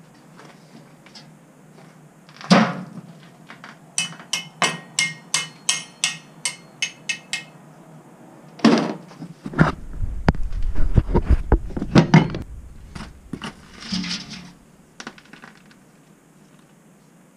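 Metal hand tools knocking and tapping on the tractor's engine sump while working at the oil drain plug. A sharp knock comes first, then about a dozen evenly spaced ringing metallic taps, then a cluster of duller knocks and thumps over a low rumble.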